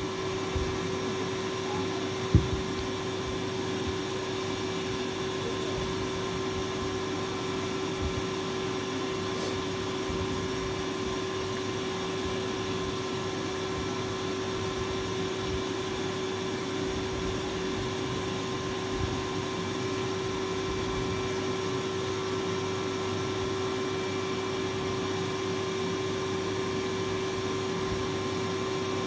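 Steady hum of an electric Tullu water pump running nearby, lifting the supply water, with one steady tone in it. A single sharp knock about two seconds in.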